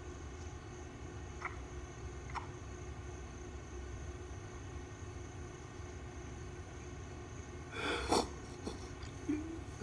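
Low steady room hum, with a person's short, sharp breath about eight seconds in and a smaller one just before the end.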